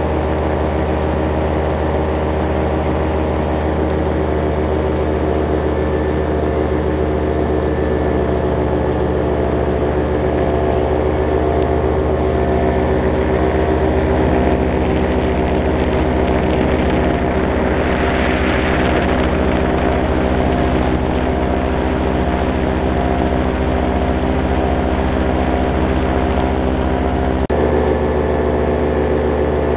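Paramotor engine and propeller running steadily in flight, with wind noise. A single sharp click near the end, after which the engine tone shifts slightly.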